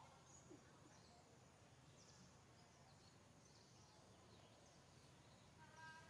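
Near silence: faint outdoor background with scattered faint high chirps and a short pitched call near the end.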